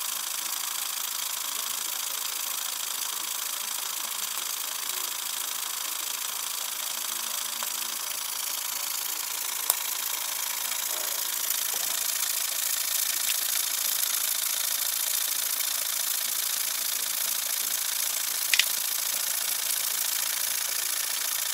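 Wilesco toy steam engine running, fired by burning hand sanitizer: a steady hiss with a mechanical rattle, growing a little louder about a third of the way in. Two sharp clicks, one about halfway and one near the end.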